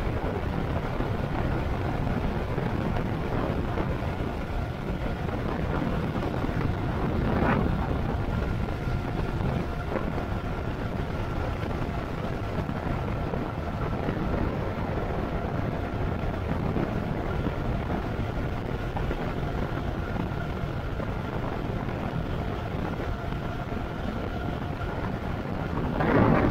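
Electric bike riding at speed, wind rushing over the microphone with a faint steady whine from the motor underneath. About seven seconds in there is a brief louder gust, and the rush swells again at the very end.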